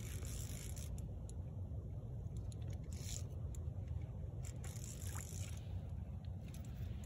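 A steady low rumble with a few brief, hissy scraping sounds over it.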